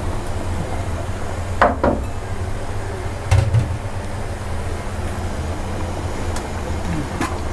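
Steady low rumble of a gas burner turned up to full flame under the curry pot, with a utensil knocking against the pot a few times: twice in the first half and once, more lightly, near the end.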